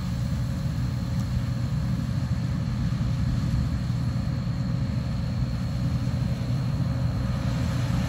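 Case IH 2388 combine running steadily while harvesting corn with a full hopper: a low, even rumble with a faint steady high whine over it.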